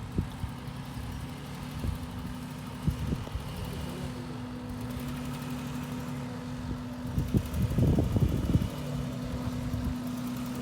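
Off-road truck engine running steadily at low revs, with scattered knocks and a burst of clunks about eight seconds in.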